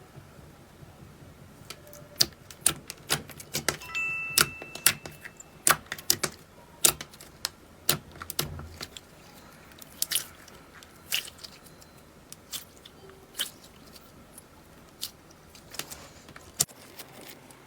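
Clear crunchy slime being pressed and poked, giving sharp, irregular crackles and pops. A short high tone sounds around four seconds in.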